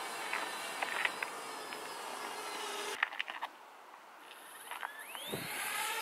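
Parrot Bebop 2 quadcopter's electric motors and propellers whining steadily with a few clicks; about three seconds in the sound cuts off abruptly, then near the end the motors spin up with a rising whine, with a low thump, as the drone lifts off and settles into a hover.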